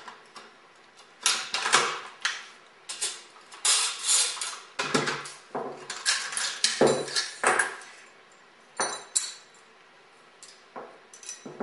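AR-15 rifle being field stripped by hand: a quick run of sharp metallic clicks and clacks as pins, receivers and the bolt carrier are worked apart and set down, thinning out near the end.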